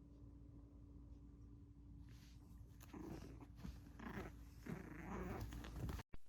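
Maltese puppy growling softly and irregularly, starting about two to three seconds in.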